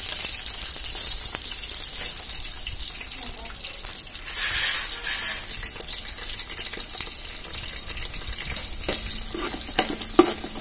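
Freshly added sliced onions sizzling in hot oil in a large metal pot, a steady hiss. In the last two seconds a metal spatula clicks and scrapes against the pot as the onions are stirred.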